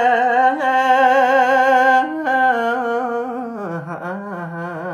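A man singing Khmer smot, Buddhist chanted verse, unaccompanied: long held notes with a wide, wavering vibrato. About three and a half seconds in, the voice slides down to a lower note and grows softer.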